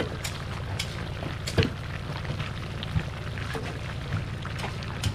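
Scattered clicks and knocks of kitchen utensils during food preparation, about half a dozen over a steady low rumble.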